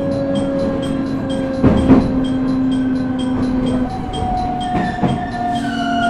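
JR East E127 series electric train's Toyo Denki GTO-VVVF inverter and traction motors whining under the floor, heard inside the car: steady tones that sink slightly as the train slows, jumping to a higher tone about four seconds in as the inverter changes mode. The wheels knock over rail joints twice, about two and five seconds in.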